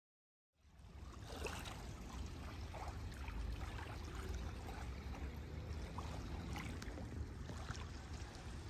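Small waves lapping and trickling against a pebble shore, over a low rumble; the sound starts suddenly about half a second in, out of silence.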